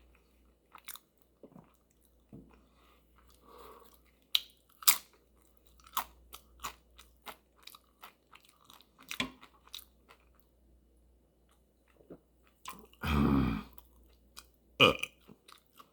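Close-up chewing and crunching of food, with a scatter of sharp mouth clicks and smacks. About 13 seconds in comes one loud, low burp lasting under a second.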